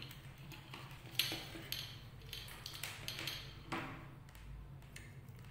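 Small clicks and rustles of thin wires and multimeter test leads being handled, about half a dozen light ticks over a faint steady low hum.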